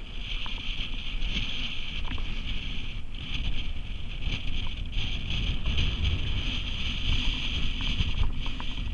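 Wind buffeting the microphone: an uneven low rumble with a steady hiss over it.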